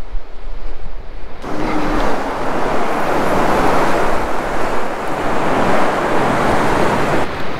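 Surf on a sandy beach: a wave breaking and washing in, swelling about a second and a half in and easing near the end, over a low rumble of wind on the microphone.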